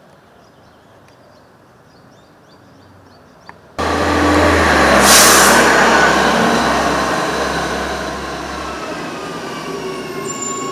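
Faint bird chirps, then, from about four seconds in, an Adelaide Metro 4000-class electric multiple unit running in close along the platform, loud, with a brief hiss about five seconds in. Toward the end a set of whining tones falls slowly in pitch as the train slows.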